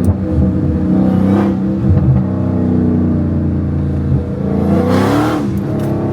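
A Hellcat's supercharged 6.2-litre V8 running loud through a catless exhaust while driving. Its note holds steady, then climbs as it revs up about five seconds in.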